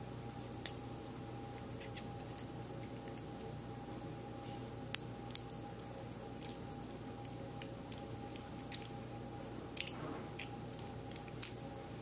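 Scattered small metallic clicks and taps as tweezers and a plug follower work the driver pins and springs out of a rim cylinder's housing, over a faint steady hum.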